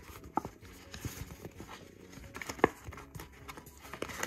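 Hands handling a doll's cardboard box and plastic packaging: scattered light taps and clicks, with a sharper knock about half a second in and a louder one about two and a half seconds in.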